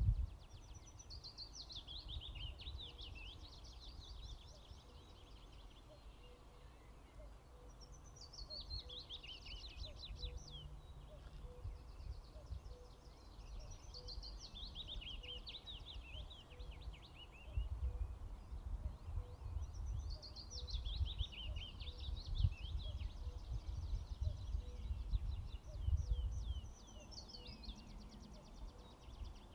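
A songbird sings a short phrase of quick, high notes that slide downward in pitch, repeated about every six seconds, five times. Under it is a low rumble of wind on the microphone that grows stronger in the second half.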